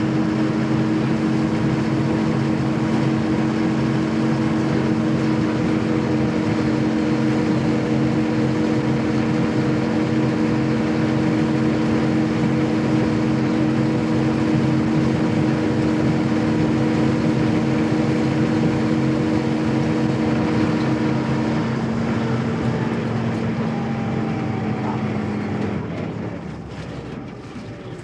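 Army truck engine running with a steady drone of several held tones over a rumble. The strongest tones drop out about three quarters of the way through, and the sound fades away at the end.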